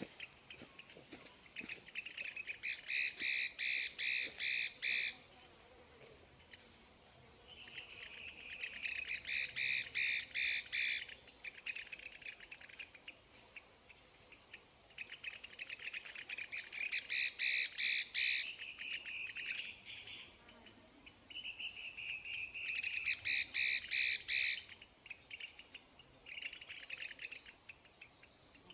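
A bạch mi songbird singing in loud phrases of rapid repeated notes, several bursts of a few seconds each with short pauses between, over a faint steady trill of insects.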